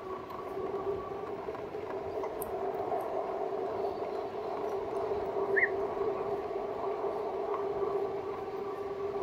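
A 2018 RadMini electric bike's geared rear hub motor whines steadily under way at cruising speed, over a steady rushing noise. A brief high chirp sounds a little past halfway.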